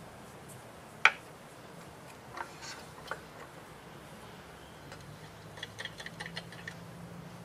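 Light clicks and taps of hands working the fittings on top of a vintage Victa two-stroke mower engine while it is readied for a rope start: one sharp click about a second in, a few softer ones, then a quick run of light clicks near the end.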